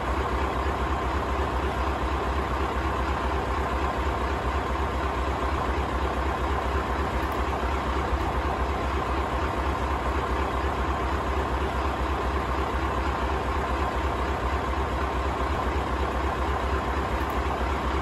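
Scania LBS141's V8 diesel engine idling steadily, a low, even rumble that never changes.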